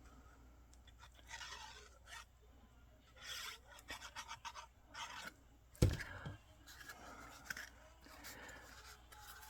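Cardstock rustling and rubbing as a paper box side is folded over and pressed into place, in short scratchy bursts with a single sharp knock about six seconds in.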